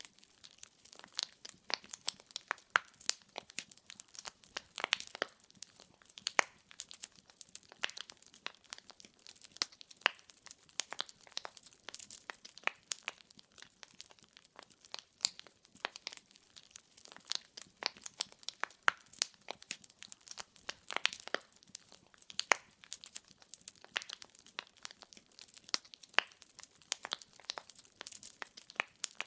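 Wood fire crackling: firewood logs burning with a steady stream of irregular sharp pops and snaps over a faint hiss.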